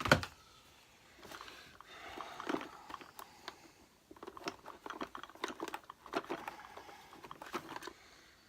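Parts of an upright vacuum cleaner's brush roll and drive belt being handled and pulled out: one sharp knock right at the start, then a run of irregular clicks, scrapes and rustling.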